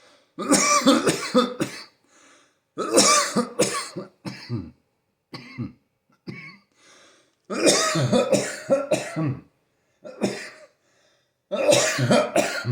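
A person's coughing fit: four long bouts of several coughs each, with shorter single coughs between them.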